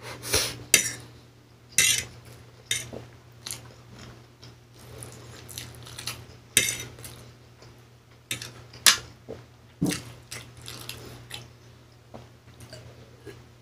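Metal fork clinking and scraping against a plate of pancit canton noodles, in a dozen or so sharp, irregular clicks with eating noises between them, over a steady low hum.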